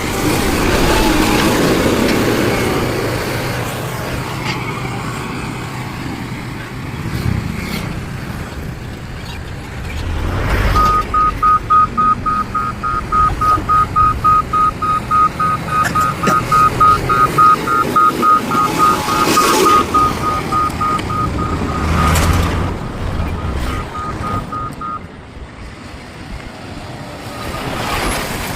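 Heavy construction machine's diesel engine running, with a reversing alarm beeping at an even rhythm through the middle of the stretch, a few beeps a second, then stopping.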